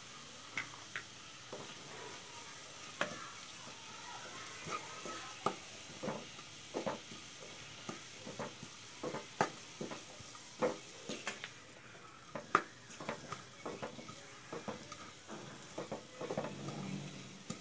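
Wooden spatula stirring and scraping diced vegetables around a black pan, with irregular knocks and scrapes against the pan over a faint sizzle of the vegetables frying.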